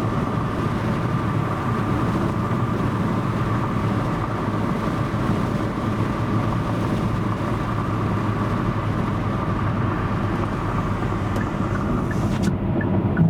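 Steady road and engine noise of a car driving along, an even rumble with no sudden events.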